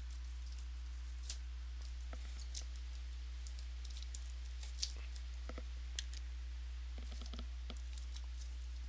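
Scattered light clicks and taps, a dozen or so at uneven intervals with a small cluster near the end, over a steady low electrical hum.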